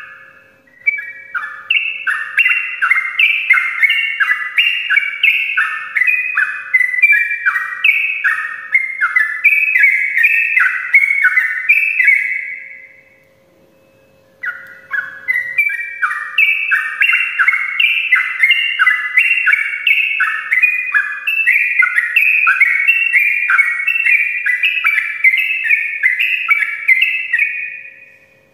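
Yellow-vented bulbul (cucak trucuk) singing its long rolling song: a fast, unbroken string of loud chattering, downward-slurred notes. It comes in two runs of about twelve seconds each, with a short pause in the middle.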